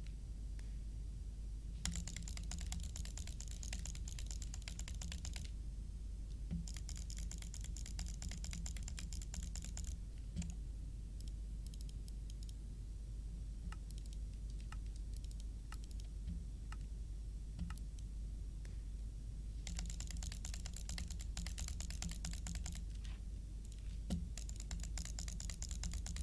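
Runs of rapid, dense clicking from small plastic switches, each run lasting a few seconds, with scattered single clicks in the pauses between runs.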